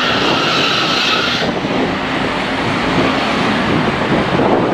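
City transit bus driving past and pulling away, its engine and road noise loud and steady, with a high-pitched sound over it that stops about a second and a half in.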